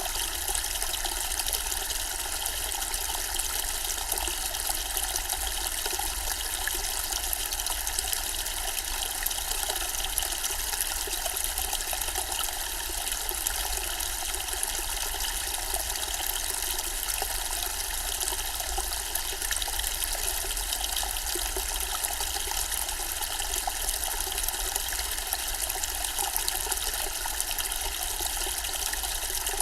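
Zen-style water fountain, water trickling steadily with an even, hissy splash and no breaks.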